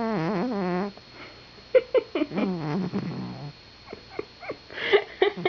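Domestic cat snoring: a loud, wavering, pitched snore in the first second, then a lower groaning sound that falls in pitch. Near the end come short clicks and sniffs.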